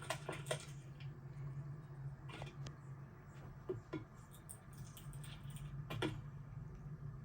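A low, steady hum with scattered light clicks and taps over it.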